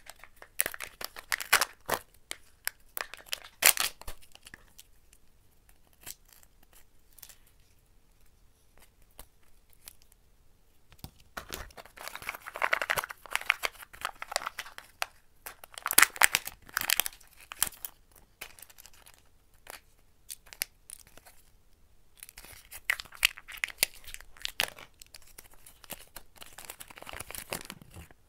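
Kinder Joy egg packaging being opened by hand: foil seal lids peeled off the plastic egg halves and wrappers crinkling, in several bursts of crackling with quieter pauses between.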